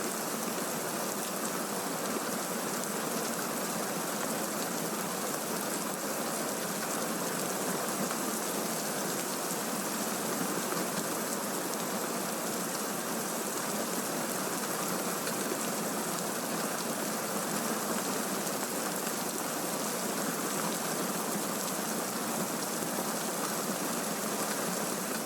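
Steady, even rain from a thunderstorm sound recording, used as a masking bed.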